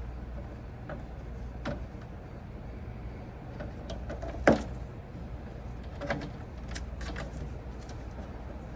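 Scattered clicks and knocks of hands and tools working at refrigerator wiring and panels, the sharpest about four and a half seconds in, over a steady low hum.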